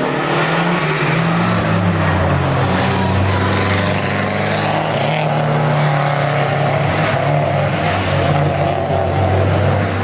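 Historic rally car's engine running hard and loud on a special stage, one sustained note whose pitch shifts a little near the start and then holds steady.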